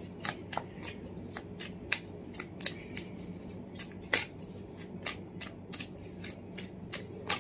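Tarot cards being shuffled by hand: a string of crisp card flicks, about three a second, with a few louder slaps about two and four seconds in and near the end.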